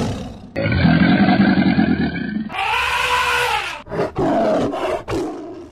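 A run of wild-animal sounds played one after another, in the order lion, alligator, tiger, elephant and gorilla. It opens with the end of a roar, then a long low rumbling growl, a roar that rises and falls in pitch, and shorter calls near the end.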